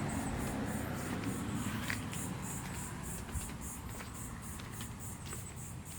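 Quiet outdoor background noise: a steady low hum with a faint, even, high-pitched pulsing of about four pulses a second.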